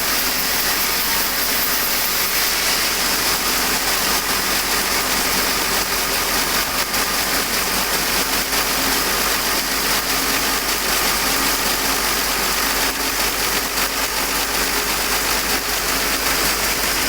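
Sawmill machinery running steadily: a continuous, even mechanical noise with a strong hiss, unbroken throughout.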